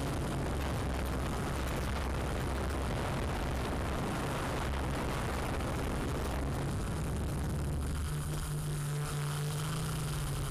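Steady rushing noise with a low motor hum, as heard from a camera drone's own microphone: its motors and propellers running while it hovers. The hum shifts in pitch about eight seconds in.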